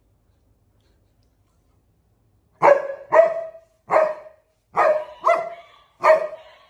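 A Samoyed barking six times in quick succession, starting about two and a half seconds in after a near-silent start.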